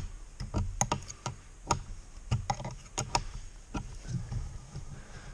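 Irregular sharp metallic clicks and taps from tools and mounting hardware as an ATV mirror mount is tightened on the handlebar, the loudest click right at the start.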